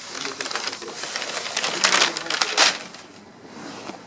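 Thin tissue paper crinkling and rustling as a cat shifts around underneath it, dying down after about two and a half seconds.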